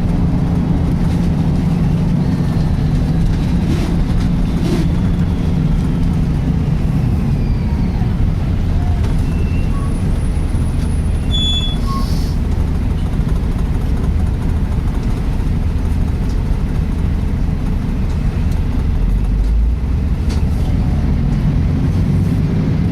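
Volvo B10BLE-based Wright Renown single-deck bus heard on board while driving: a steady, loud low drone from the drivetrain carrying the loud 'sweeping' noise, a serious fault the uploader ties to the Voith gearbox. A short hiss comes about halfway through.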